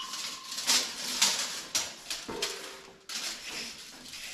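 Irregular light clicks and taps of tools and metal parts being handled while measuring for a fuel-tank mount, with a short steady tone a little over two seconds in.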